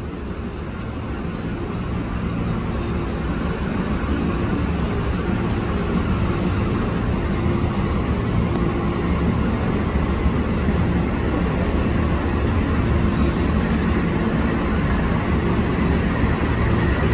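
Diesel-electric locomotive of an approaching passenger train running with a low engine hum, growing steadily louder over the first several seconds as it nears, then holding.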